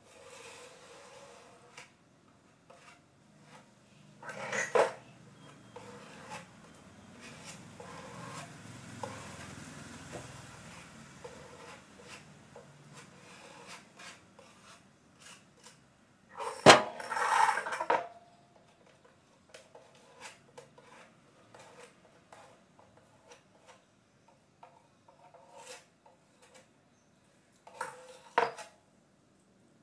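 Hand-work noises on a wooden cabinet door: scattered taps, clicks and knocks as the door and small tools are handled, with some rubbing. Three louder clatters come about four seconds in, about halfway through, and near the end.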